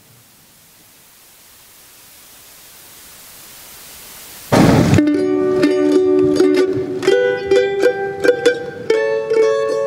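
Faint room hiss for about four and a half seconds, a short rush of noise, then a small acoustic plucked string instrument of the mandolin type begins picking a melodic introduction, one note after another in a steady rhythm.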